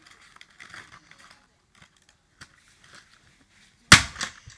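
Faint rustling and crinkling of a boxed vinyl toy figure in a plastic bag being handled, then near the end a loud sharp smack as the package is whacked down, with a smaller knock just after.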